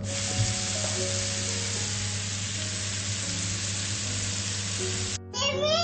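Masala-coated prawns sizzling in hot oil in a pan, a steady dense sizzle that cuts off abruptly about five seconds in.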